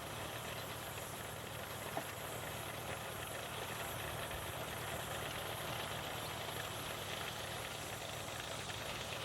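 Steam engine running steadily, powering a sawmill.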